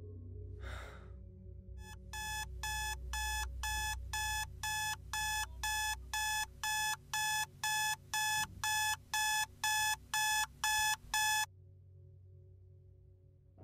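Smartphone alarm beeping about twice a second and getting gradually louder, then cut off abruptly a couple of seconds before the end.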